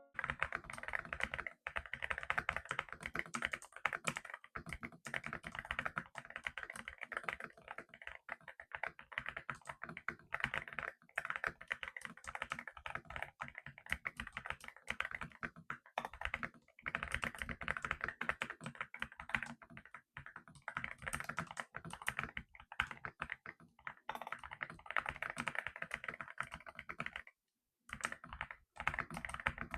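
Sustained fast typing on a Yunzii X98 transparent-case mechanical keyboard: a dense run of keystrokes, with a short pause near the end.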